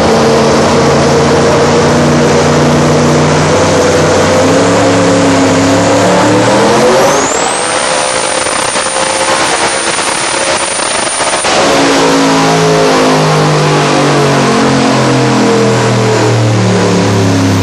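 Twin-turbocharged Buick Grand National V6 running hard on a chassis dyno. About seven seconds in the revs climb sharply and a thin high whine comes in and holds for about four seconds. Then the revs fall back and the engine keeps running loudly.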